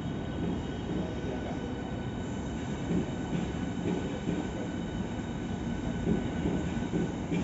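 Hitachi Class 395 electric multiple units, two coupled, running through the station. Their traction motors give a whine of several steady high tones over the continuous rumble of wheels on the rails.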